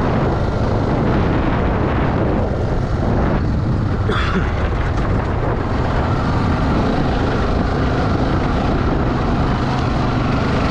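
Four-stroke off-road dirt bike engine running steadily as the bike is ridden, with a short sharp tick about four seconds in.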